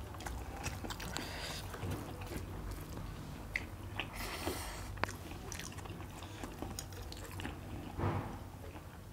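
Close-up sounds of people eating rice and mutton curry by hand: chewing and mouth noises, with small wet clicks and squishes as rice is mixed and pressed between fingers.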